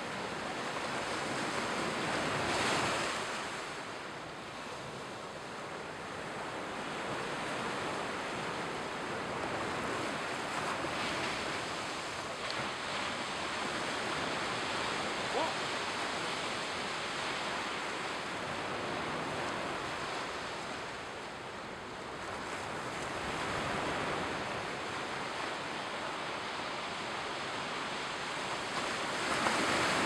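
Mediterranean surf washing onto a sandy beach: a steady rush of water that swells louder a few times as bigger waves break.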